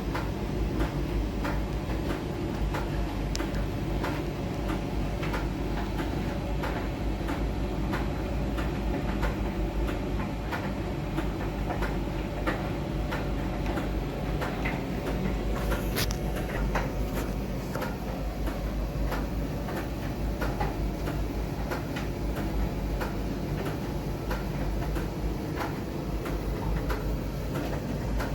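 Miele laundry machine's drum turning a load of bath towels: a steady low hum and rumble with light irregular clicks and knocks about once or twice a second, and one sharper click about halfway through.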